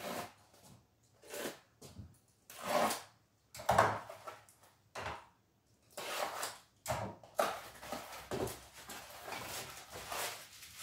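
A small cardboard box being opened and unpacked by hand: cardboard and packing rustling and scraping in a series of short, separate bursts.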